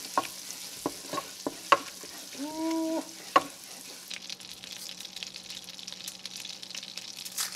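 Butter sizzling in hot bacon fat in a nonstick frying pan, stirred with a wooden spoon that knocks against the pan several times in the first half. The crackle of the bubbling fat gets busier in the second half, and a brief steady tone sounds about a third of the way in.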